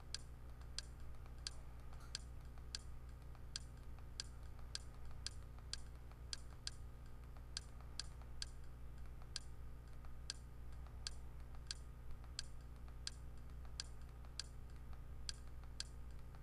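A steady run of short, sharp clicks, about one and a half a second, as the TV box's on-screen movie menu is scrolled down page by page, over a low steady hum.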